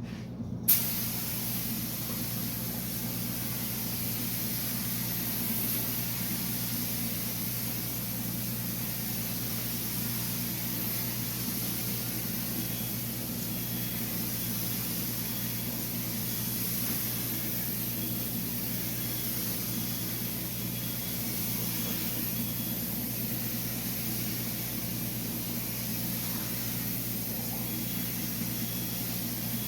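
Paint spray gun hissing steadily as primer is sprayed, starting with a sharp pop about a second in and running without a break, over a steady low mechanical hum.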